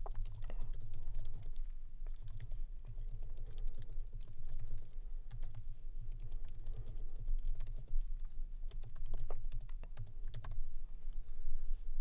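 Typing on a computer keyboard: an irregular run of key clicks, over a low steady hum.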